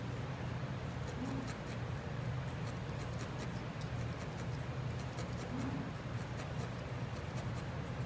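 Barbed felting needle stabbing repeatedly into core wool on a felting pad to firm up a small sculpted leg: rapid light ticks, several a second, starting about a second in and coming thicker later on. A steady low hum runs underneath.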